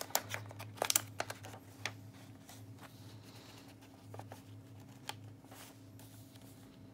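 Paper and card being handled: rustling and soft clicks as journal pages and a tag are lifted and turned, most of them in the first two seconds, over a low steady hum.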